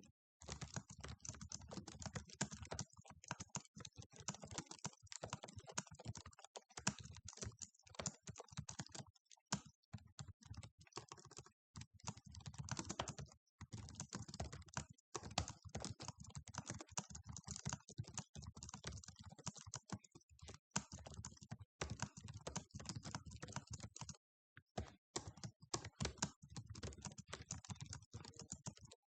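Fast typing on a computer keyboard: a dense, unbroken run of key clicks, stopping for a moment now and then.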